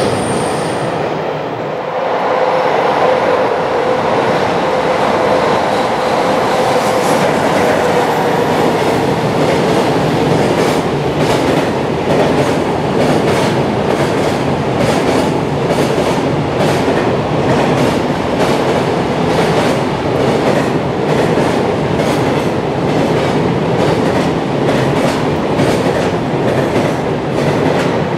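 A long container freight train passing at speed with a steady rumble of wheels on rail. A held whine sounds for several seconds near the start, and from about ten seconds in there is a regular clickety-clack of wheels over the rail joints.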